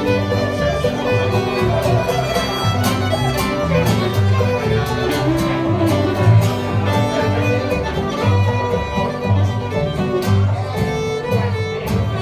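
Live acoustic string band playing a fiddle tune: bowed fiddle carrying the melody over acoustic guitar and plucked upright bass notes.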